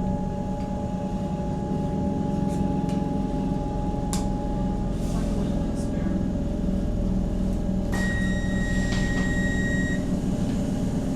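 Inside an EDI Comeng electric train: the steady hum of its running equipment, with a click about four seconds in and a single high-pitched electronic beep lasting about two seconds near the end.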